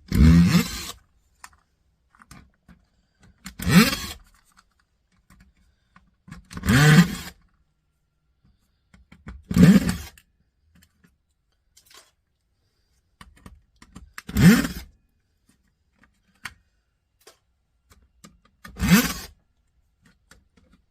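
Electric screwdriver backing screws out of a cassette deck's chassis: six short runs of the motor, each spinning up and winding down within a second, a few seconds apart.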